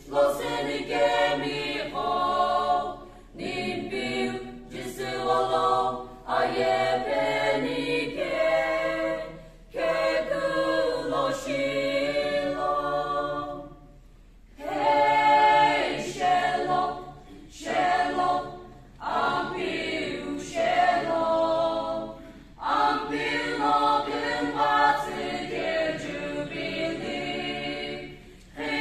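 Mixed choir of men and women singing unaccompanied, in long phrases with short pauses between them.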